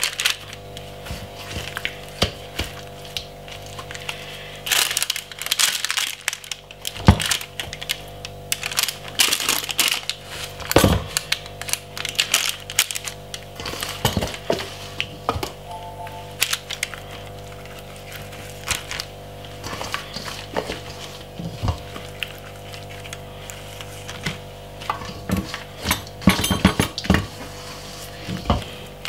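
Marinated raw chicken pieces being lifted out of a stainless steel bowl and laid on a parchment-lined baking tray: irregular crackles of the parchment paper, wet handling noises and now and then a knock of the bowl, busiest about five to twelve seconds in and again near the end.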